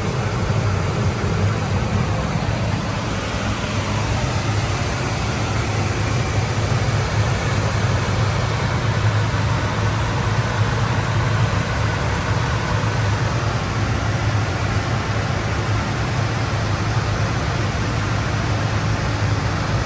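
John Deere 6110R tractor's diesel engine running steadily, a low, even drone with a constant hiss over it.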